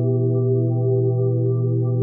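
Ambient relaxation music: sustained ringing, bowl-like tones held over a steady low drone tone, the track's constant 'relaxation frequency'.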